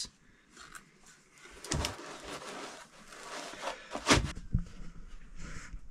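Handling noise from unpacking resin 3D printer parts out of foam packaging: rustling with a few clicks and knocks, the loudest knock about four seconds in.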